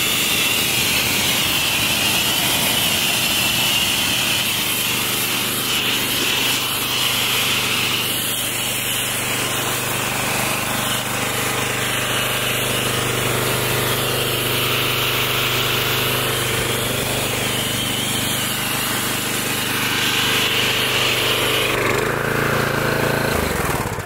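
Electric pressure washer running, its motor and pump humming steadily under the hiss of the water jet as the car's wheels are rinsed off. Near the end the motor winds down and stops.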